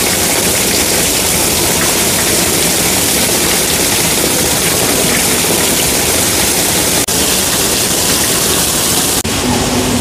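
A steady, loud hiss of splashing, running water, like a fountain, which breaks off briefly twice near the end.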